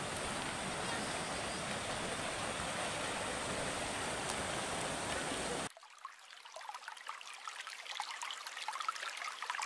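Steady rush of a shallow stream running over rocks. About halfway through it cuts off suddenly, leaving a fainter trickle with small ticks that slowly grows louder.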